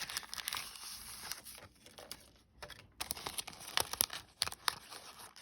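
Paper and plastic craft supplies rustling and crinkling as they are gathered up and handled, with a few light clicks and taps.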